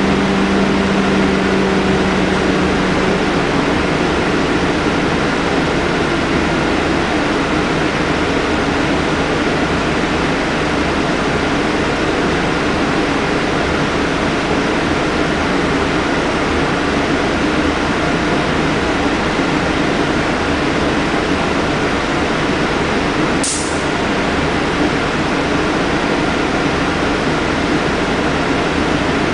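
A Scania K310UD double-decker bus standing with its Scania DC9 engine idling, heard inside the lower-deck cabin under a steady rush of air-conditioning. A low steady hum fades out in the first few seconds, and a short, sharp hiss comes about 23 seconds in.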